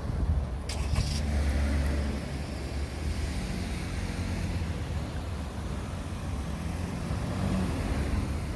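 Road traffic: cars driving through the intersection, engine rumble and tyre noise, loudest in the first two seconds and then steady.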